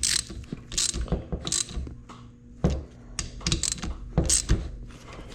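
Metal hand tools and engine parts clicking, clinking and scraping in irregular short bursts, the sound of mechanical work with a ratchet or similar tool.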